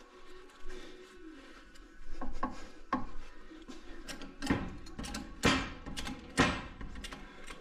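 A run of sharp knocks and clatter from tools and metal parts under the car. A few light clicks come about two to three seconds in, then three loud knocks about a second apart in the second half.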